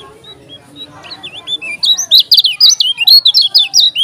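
Caged kecial kuning white-eye singing a rapid, high twittering song of quick sliding notes, soft at first and turning loud and dense about two seconds in.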